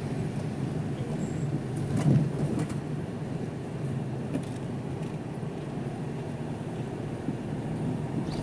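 Steady engine and road noise of a car being driven, with one brief thump about two seconds in.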